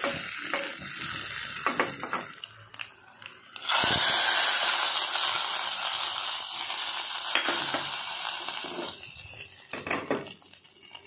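A tadka of cumin seeds, dried red chillies and curry leaves sizzles in a small pan. About four seconds in, it is poured over dalma (lentils) in a pressure cooker, and a loud hiss starts suddenly and dies away over about five seconds.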